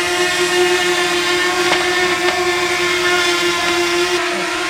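Small quadcopter drone hovering, its propellers giving a steady buzz that holds one unchanging pitch.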